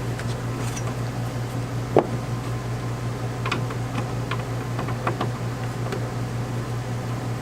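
Light clicks and taps of the screen door crossbar and its fittings being handled as it is taken down, with one sharper knock about two seconds in and a run of clicks a little past the middle, over a steady low hum.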